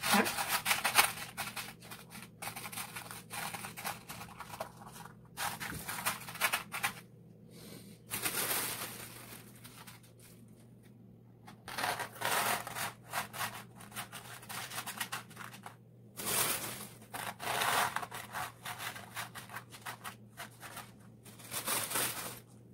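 Hands spreading and pressing small stones across a painted canvas: gritty rubbing and scraping in irregular bursts, with pauses between them. A faint steady low hum sits underneath.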